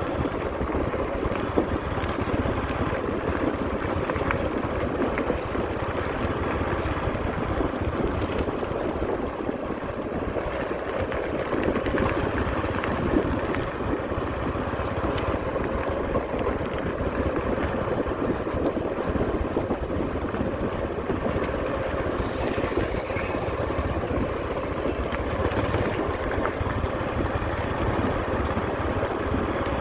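Diesel engines of road-paving machinery running steadily, a continuous mechanical rumble without breaks.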